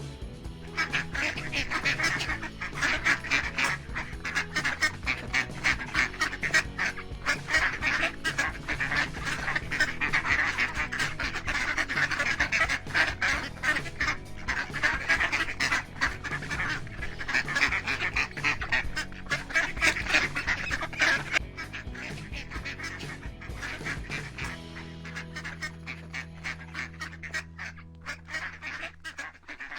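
Ducks quacking rapidly and continuously, a dense chorus of quacks that thins out after about 21 seconds.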